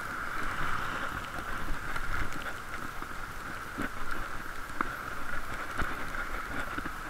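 Bicycle riding noise muffled by a waterproof camera case: a steady rush of wind and tyre rumble with a constant hum-like band above it. A few short knocks come about a second apart around the middle.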